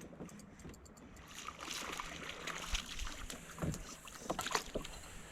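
Water splashing and swishing around a canoe, with a few sharp knocks against the hull in the second half.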